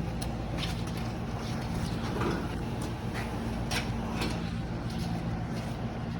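A steady low motor hum, with scattered brief crunches and knocks over it.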